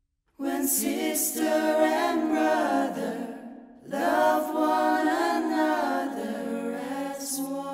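Mixed group of men's and women's voices singing a cappella in harmony: the singing starts half a second in, with a short breath-pause about halfway through before the next phrase.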